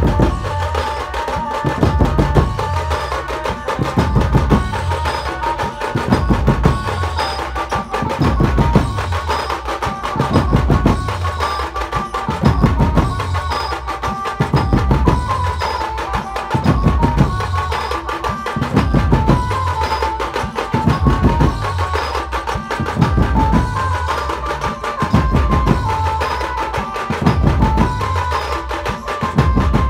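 Dhumal band playing a sawari dhun, a procession tune: low drums beat in a repeating pattern that comes round about every two seconds, under a held melody that steps between notes.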